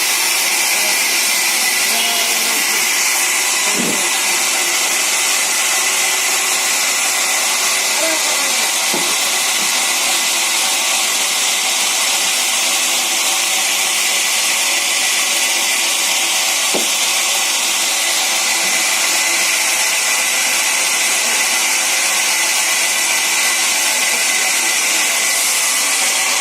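Sawmill saw running steadily, a loud even hiss, with a few faint knocks now and then.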